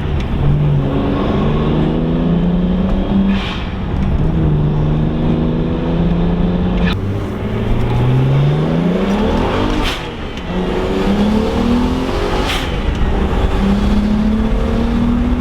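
BMW 335i's turbocharged straight-six accelerating hard through the gears on a road test after an ECU repair for a misfire: the engine note climbs, drops back at each upshift, and climbs again, with a brief sharp noise at several of the shifts.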